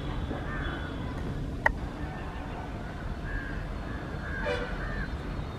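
Steady low rumble of a train, with a sharp click about a second and a half in and a short horn toot near the end.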